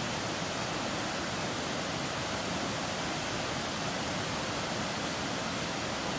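Large waterfall in heavy flow, white water pouring over stepped rock ledges: a steady, even rush of falling water.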